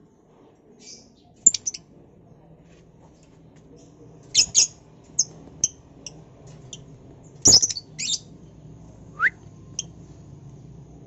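Lovebirds chirping: short, sharp, high-pitched calls coming a few at a time. The loudest is a double call about seven and a half seconds in, and a quick rising call follows near the end.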